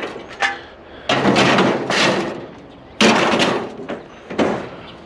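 Two loud clattering crashes about two seconds apart, each dying away over about a second, then a smaller knock: curbside junk being pulled from a pile and thrown down.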